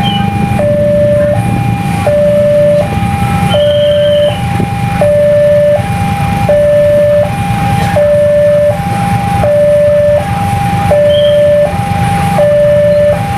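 Electronic level-crossing warning alarm sounding a loud, steady two-tone alternation, switching between a lower and a higher tone about every three quarters of a second. It is the warning that a train is approaching the crossing.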